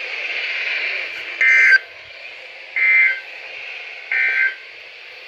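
Emergency Alert System end-of-message data code on NOAA Weather Radio: three short bursts of data tones about 1.4 s apart, over steady radio hiss, signalling the end of the alert message.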